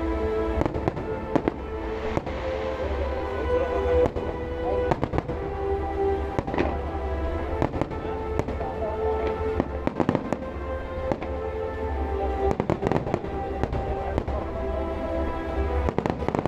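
Aerial fireworks shells bursting in many sharp bangs at irregular intervals, over music with long held notes.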